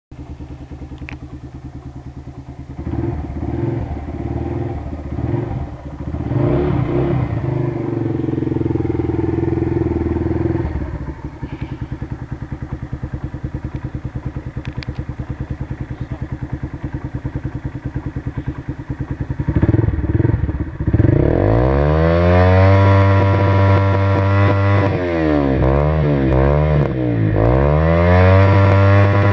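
Honda CG 125 Fan's single-cylinder four-stroke engine running through an aftermarket Roncar oval aluminium exhaust. It idles with an even pulse, is blipped a few times early on, settles back to idle, then from about twenty seconds in is revved hard again and again, the pitch rising and falling with each blip.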